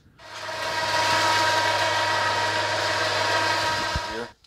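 A motor runs steadily with a hum and a bright, buzzing top. It comes up to speed within the first second and cuts off about four seconds in, its pitch dropping as it stops.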